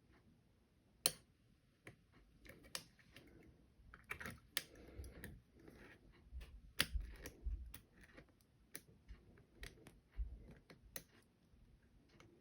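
Faint, irregular clicks and light scraping of a wire pick and tension wire working the levers inside a Belfry two-lever padlock, with a few low handling bumps.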